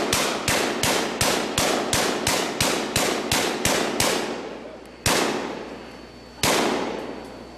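Hand-cranked Gatling-style gun firing blanks in a rapid, even string of about three shots a second. After a pause it fires two more single shots, about a second and a half apart, near the end.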